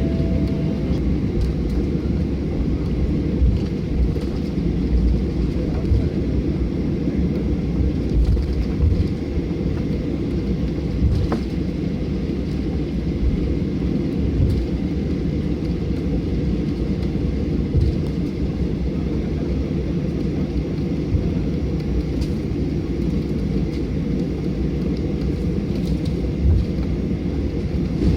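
Steady low rumble of a Boeing 737-800 heard from inside the cabin: engine and airflow noise, with occasional small bumps.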